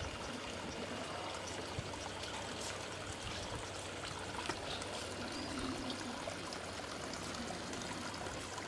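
Steady sound of running water, a small stream trickling and pouring.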